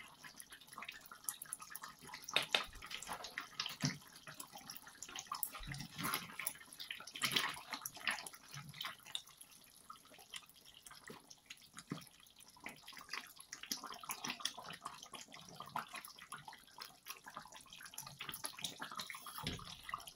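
Chicken curry simmering in a steel pan, with small irregular bubbling pops and crackles in the sauce, and a silicone spatula stirring through it now and then.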